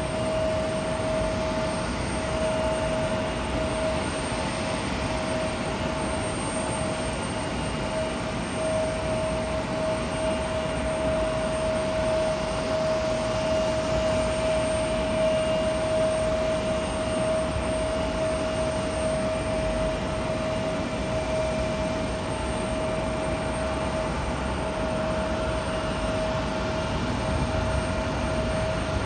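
Distant jet engines running steadily across the airfield: a constant high whine over an even rumbling hiss, without the rise of a takeoff run.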